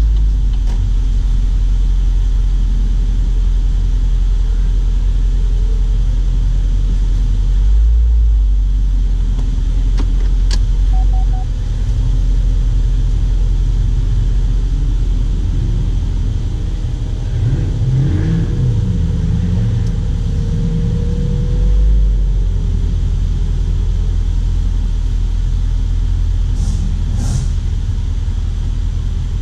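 HSV Clubsport's supercharged 6.2-litre LSA V8 rumbling at low speed, heard from inside the cabin. The engine note shifts up and down briefly a little past halfway, with a couple of faint clicks.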